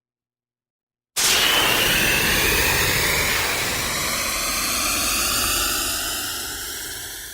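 Synthesized sci-fi laser sound effect: a loud hissing noise that starts suddenly about a second in and sweeps slowly upward in pitch, fading a little near the end.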